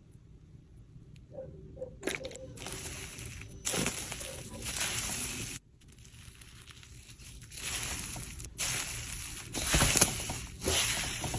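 Slime being squished and worked by hand: irregular bursts of wet, noisy squishing that start about two seconds in, break off briefly midway, and build again, with one sharp crack about ten seconds in.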